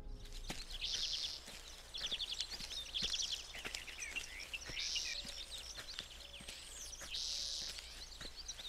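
Forest birdsong, with a bird repeating a short trilling phrase about every two seconds and other birds calling softly. Light, irregular footsteps on the forest floor come through underneath.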